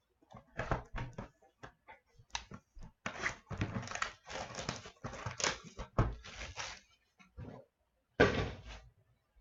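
A hockey card box and its plastic wrapping being opened by hand: crinkling and cardboard rustling in irregular bursts, with a short louder burst near the end.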